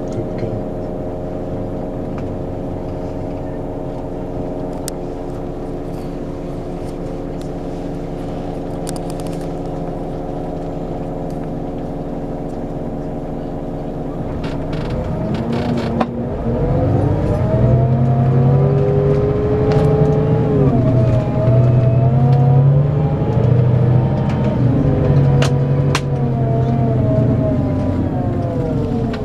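Scania K410EB6 coach's 13-litre straight-six diesel running steadily, then revving up and pulling hard about halfway through, louder, its pitch rising and dipping several times as it accelerates.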